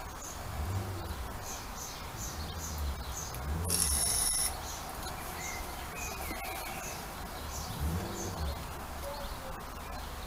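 Garden birds calling: a small bird chirps over and over, and a louder, high, rasping call comes about four seconds in. A low rumble swells and fades underneath.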